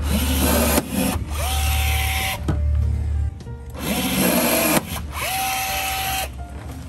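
A battery-powered rivet gun pulling blind rivets, running in several short bursts of about a second each. In two of the bursts the motor's whine rises and then holds steady.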